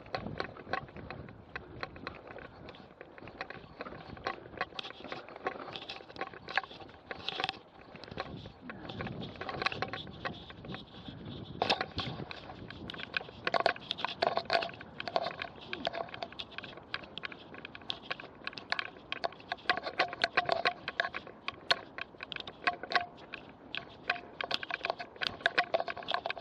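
Mountain bike rattling and clattering over a bumpy dirt track, with many sharp irregular knocks from the bike and camera mount over a rough rolling noise; the clattering gets busier and louder from about halfway through.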